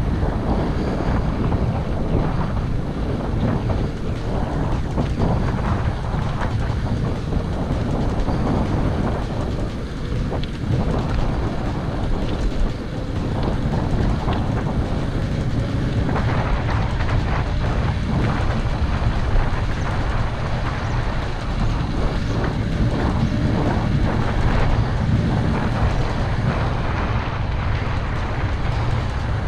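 Wind buffeting the microphone while riding a full-suspension bicycle, with steady rumble and scattered small clicks and rattles.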